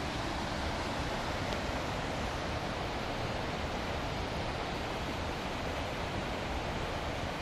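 A waterfall: water falling and rushing in a continuous, even noise.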